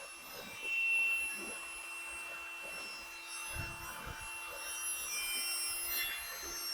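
Faint handling noises at a workbench: light knocks, taps and rubs of small parts and tools, scattered and irregular, over a steady faint hum.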